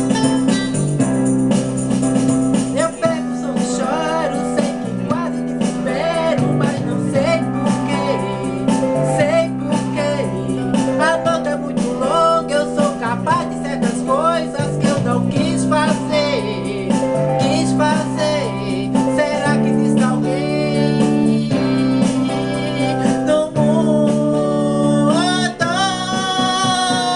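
A pop song playing: a sung melody with vibrato over steady keyboard chords.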